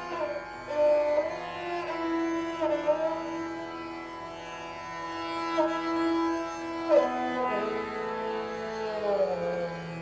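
Indian classical-style background music: a string instrument playing a slow melody that slides between notes over a steady drone.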